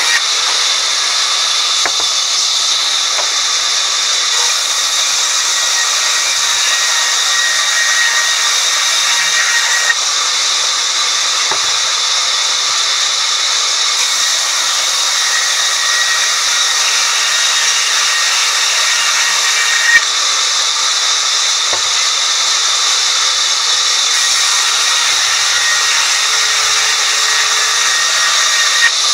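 Sawmill saw running steadily and cutting through a wooden plank: a continuous high hiss with a faint whine, broken by a few small knocks, the sharpest about two-thirds of the way through.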